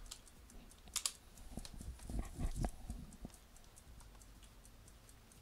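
Computer keyboard keystrokes, with one sharp key press about a second in as the typed search is entered, then scattered lighter clicks. A few low, muffled sounds come around the middle.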